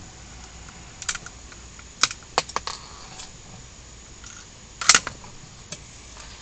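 A few light metallic clicks of a gun being handled and readied, then a single gunshot a little before five seconds in.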